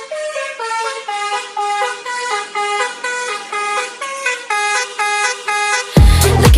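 A tune played note by note in a honking, car-horn-like tone. Near the end a dance beat with heavy bass kicks in.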